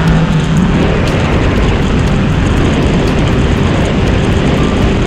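Steady, loud rushing noise with no clear tone or break.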